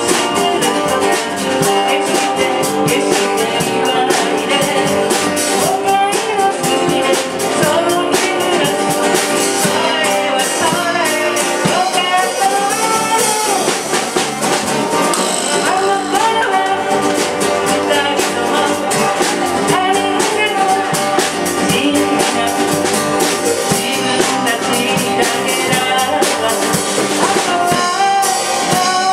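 Live band playing a song: guitars, bass, keyboard and drum kit, with a woman singing the lead.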